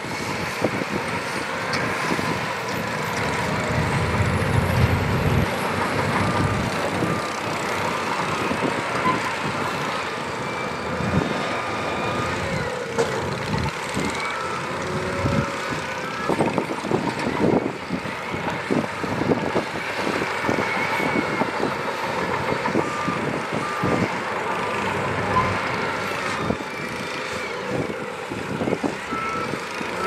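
Heavy earthmoving machinery at work: diesel engines running under load with metallic clanks and shifting whines, and a reversing alarm beeping at times.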